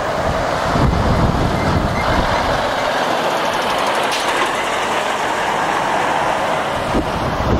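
Volvo articulated lorry with a curtain-side trailer driving slowly past at close range: a loud, steady rumble of diesel engine and tyres rolling on tarmac.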